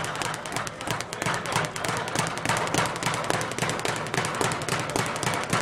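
Speed bag being punched with boxing gloves in a fast, even rhythm, the bag rattling against its round rebound platform several times a second.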